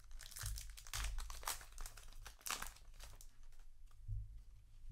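Foil trading-card booster pack crinkling and tearing as it is opened, a run of rustles during the first three seconds, quieter handling after.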